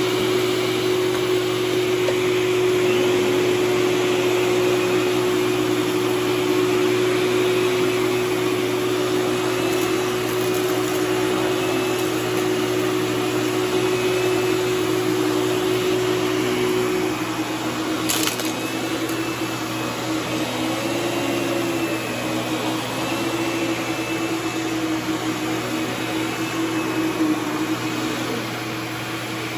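Hoover canister vacuum cleaner running steadily with a strong hum and a higher wavering whine. The hum drops slightly in pitch a little over halfway through, and there is a brief click just after.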